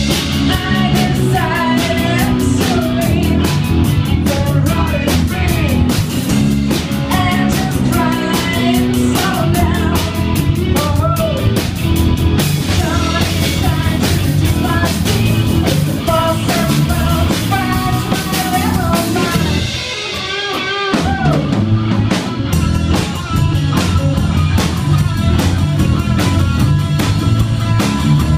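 Live rock band playing: electric guitar, bass guitar and drum kit, with singing. About twenty seconds in, the bass and drums drop out for about a second before the full band comes back in.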